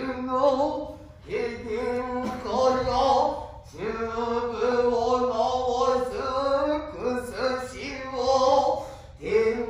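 Male chanting in the Noh and kyogen style (utai): long, wavering held notes in phrases with short breaks between them, each phrase sliding up into its note.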